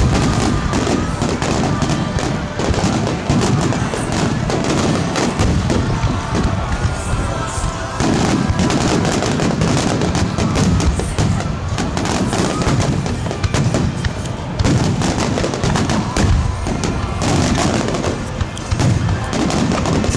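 Fireworks finale barrage: aerial shells bursting in rapid, overlapping bangs and crackles without a break.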